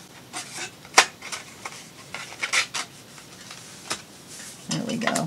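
A paper notebook being slid back into its card cover by hand: light rustling and scraping of paper and card, with scattered soft taps and one sharp click about a second in.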